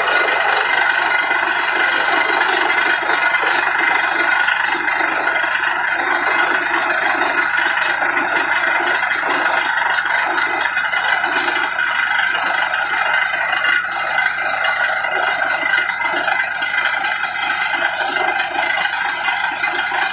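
Truck-mounted borewell drilling rig running while it drills: a loud, steady, continuous mechanical noise of the rig's engine and drilling machinery.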